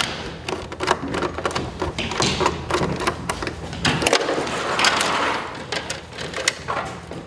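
Electrical cables being handled and pulled through a breaker panel by hand: a string of small clicks and taps, with a longer scraping rustle about five seconds in.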